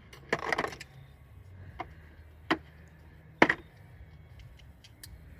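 Hand tools being put away: a short rattle of clinks, then two single sharp clacks, the loudest about three and a half seconds in.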